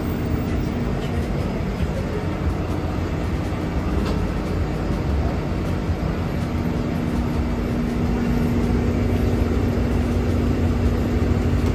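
Shuttle bus under way, heard from inside the cabin: steady engine and road rumble with a constant hum.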